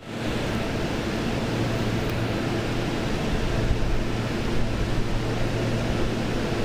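Seibu 2000-series electric train standing at the platform with its doors open, its onboard equipment giving a steady low hum over a constant noise.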